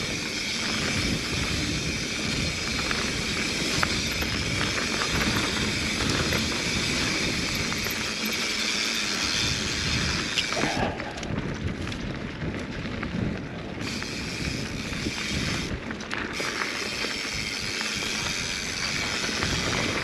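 Mountain bike riding down a dirt singletrack: tyres on the dirt, the bike rattling over bumps, and wind on the microphone. The rush thins out for a few seconds about halfway through.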